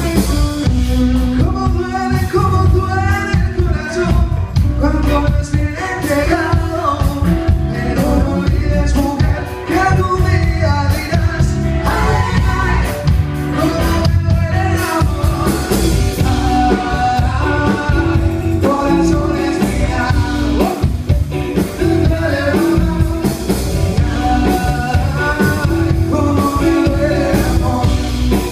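Live rock band playing: a male lead vocal sings over electric guitar and a drum kit.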